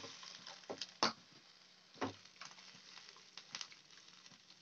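Vegetables and sauce sizzling in a hot nonstick wok as water is poured in, the hiss dying down as the water cools the pan. A silicone spatula stirs through the mix, knocking against the pan a few times.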